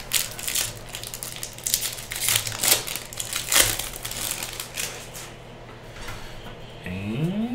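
Foil wrapper of a jumbo pack of Topps baseball cards crinkling as it is torn open by hand. The crinkling goes quieter about five seconds in.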